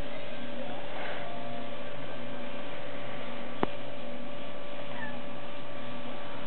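Steady electrical hum with a newborn kitten's faint, short, high mew about five seconds in. A single sharp click comes a little past halfway and is the loudest sound.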